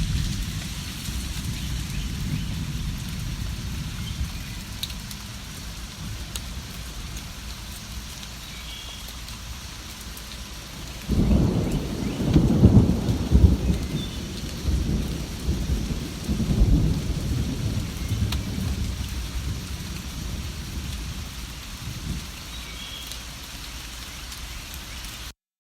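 Steady rain, with a roll of thunder that breaks in suddenly about halfway through and rumbles low in several swells for some seconds before fading back under the rain.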